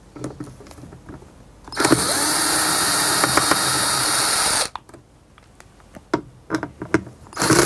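Cordless drill-driver backing out the screws of a plastic vacuum-cleaner handle cover: a steady motor run of about three seconds that rises in pitch as it starts and stops suddenly, then light knocks of the bit being moved to the second screw, and the motor starting again near the end.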